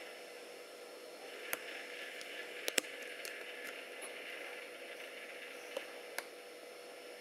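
Steady hiss and a faint hum of room tone with no voice, broken by a few sharp clicks: one about a second and a half in, a close pair near three seconds, and two more near the end.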